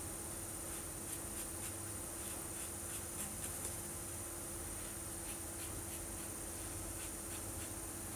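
Felt-tip marker rubbing on paper in many short, quick strokes as a small area is coloured in, over a steady hum.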